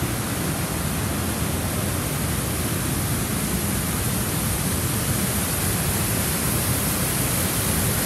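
Small mountain waterfall cascading over rocks: a steady rush of falling water that grows slightly louder near the end.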